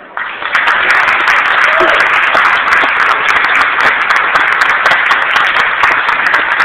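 Audience applauding, breaking out suddenly and holding steady and loud, with a voice heard briefly in the crowd about two seconds in.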